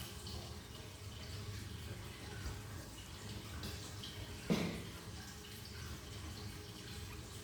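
Faint handling of an opened sticker packet: small scattered ticks and crinkles over a steady low room hum, with one short louder click about four and a half seconds in.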